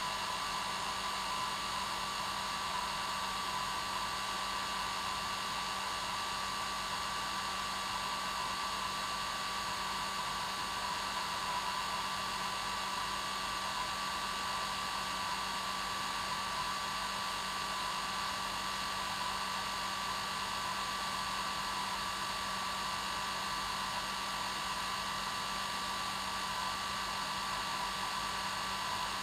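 Hair dryer running steadily on its normal setting, a constant blowing noise with a whine and a low hum, played as white noise to lull a baby to sleep.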